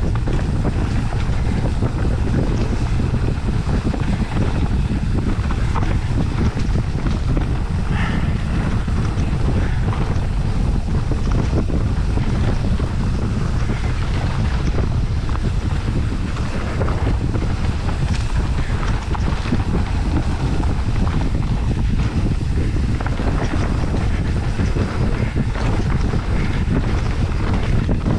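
Wind buffeting the microphone of a camera on a mountain bike riding a dirt trail, a steady low rumble with a few short knocks and rattles from the bike over the rough ground.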